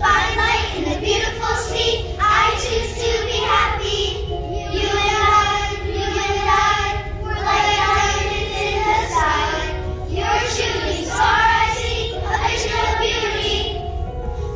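Group of young children singing a song together.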